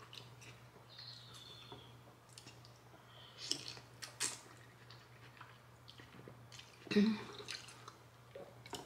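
Close mouth sounds of a person eating pho: two loud slurps of noodles, about three and a half and four seconds in, with quiet chewing and small wet clicks between. There is a short vocal sound about seven seconds in.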